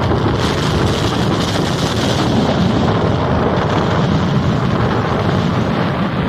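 Waves of a rough sea breaking, with strong wind buffeting the microphone: a loud, steady rush of noise with no distinct strokes.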